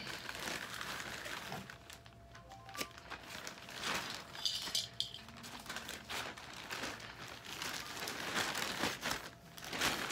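Thin plastic shopping bag crinkling and rustling in irregular bursts as hands rummage inside it.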